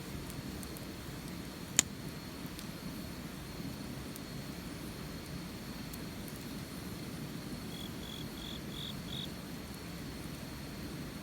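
Campfire burning with a steady low rush, faint crackles and one sharp pop about two seconds in. Near the end, a short run of five high chirps.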